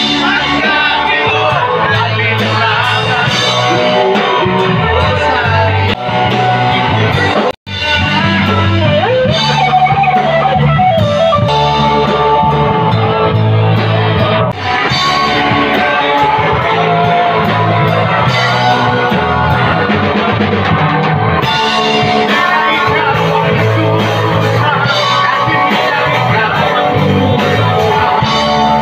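Loud rock music with guitar, drums and singing. It drops out for an instant about seven and a half seconds in.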